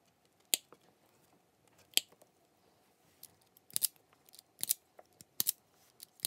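Sharp snips and clicks of side cutters and a self-adjusting wire stripper trimming and stripping the ends of the immersion heater's stranded cable: single snips about half a second and two seconds in, then several quick double clicks.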